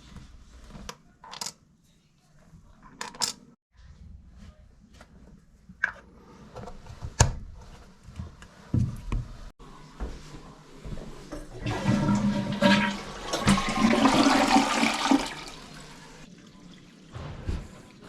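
A few sharp clicks and knocks, then a newly installed toilet flushing: a loud rush of water for about three to four seconds, starting about twelve seconds in.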